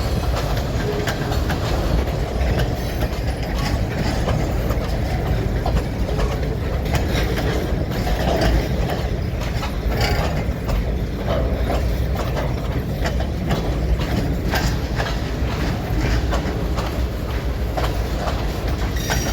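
Freight train cars rolling steadily past at close range: a continuous low rumble with repeated clicks and clanks of wheels over the rail joints.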